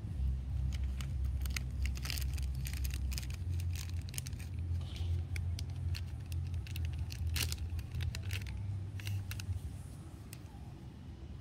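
Low, steady motor-like hum that stops about ten seconds in, with scattered sharp clicks and ticks over it.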